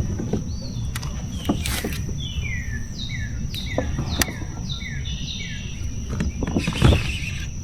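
A bird sings a run of about eight quick downward-slurred whistled notes, over a steady low rumble and a thin steady high whine. A few sharp clicks are heard along the way.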